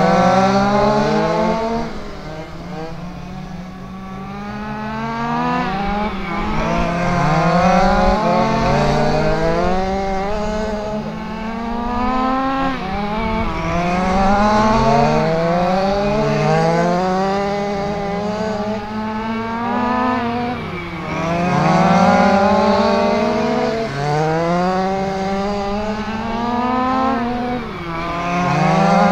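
Several quarter-scale RC sprint cars racing on a small paved oval, their engines rising in pitch down the straights and dropping into the turns. The rise and fall repeats every two to three seconds as the cars lap.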